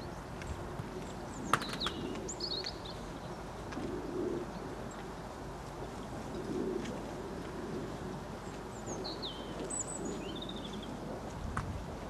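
Wild birds calling: short high chirping phrases about two seconds in and again near ten seconds, over a few low coos and a steady low background hum. There is one sharp click about a second and a half in.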